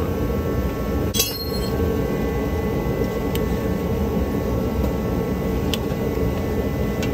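Metal hand tools on the oil pan bolts while they are torqued: one sharp metallic clink with a short ring about a second in, then a few faint clicks spaced out over the following seconds, over a steady background hum.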